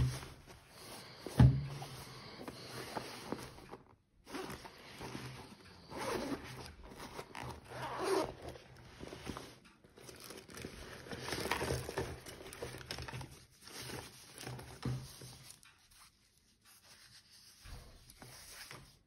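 Zipper on a black nylon carry bag being pulled open in several long strokes with short pauses, mixed with fabric rustling and handling. There is a sharp thump about a second and a half in.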